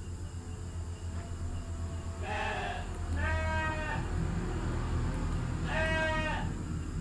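Three short, quavering bleat-like calls: one about two seconds in, one just after three seconds, and one near the end, over a steady low hum.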